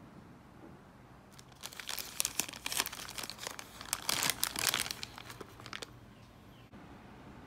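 White paper bag crinkling as hands pull it open, a dense run of crackles starting about a second and a half in and stopping about six seconds in.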